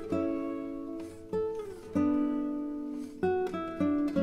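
Background music: acoustic guitar playing plucked notes and chords, some of them sliding in pitch.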